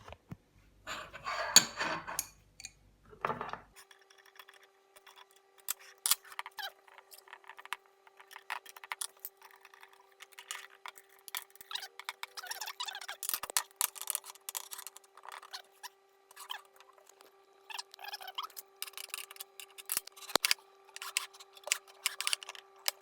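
Small clicks, taps and scrapes of metal parts and hand tools being handled while a 3D printer frame is assembled, with a faint steady hum underneath.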